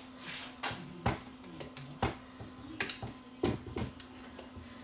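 Light clicks and knocks of a screwdriver and hands working at the motor mounting on the metal chassis of a Dual 1225 turntable, about half a dozen spread irregularly, over a faint steady hum.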